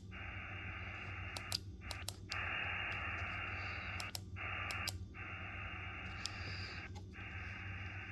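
Receiver hiss from a Xiegu X6100 HF transceiver's speaker, held to the narrow voice passband of its SSB filter. It drops out briefly with a click about five times as the operator jumps between bands.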